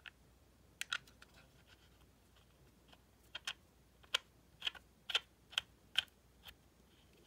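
A 510 oil cartridge being screwed by hand onto the threaded connector of an Airis Turboo vape battery: a dozen or so small, irregular clicks and ticks, most of them bunched in the middle and latter part.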